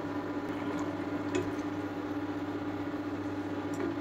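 Dal and vegetable curry simmering in a pan, with a few soft bubble pops over a steady low hum.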